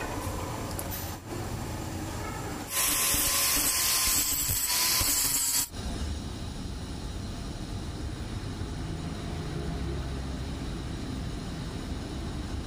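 Manual metal lathe running, with a much louder hiss for about three seconds that stops suddenly. Then a low, steady hum.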